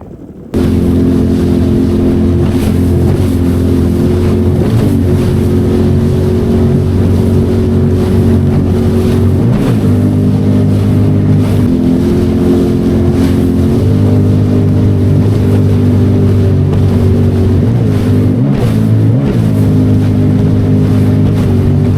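Jet ski engine running at cruising speed across open water, loud and steady, with its pitch dipping briefly a few times as the revs change over the swells, and a hiss of wind and spray over it.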